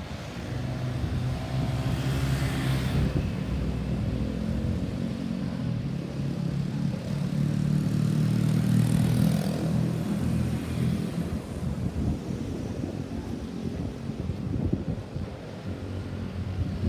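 Road traffic: motor vehicle engines running as vehicles drive past, with one vehicle passing about two seconds in and a louder one around nine seconds in. No siren is sounding.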